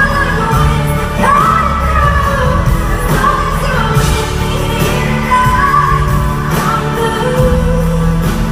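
Live pop ballad: a female lead singer holding long notes that slide between pitches, over band accompaniment with a steady low bass, heard through a phone's microphone.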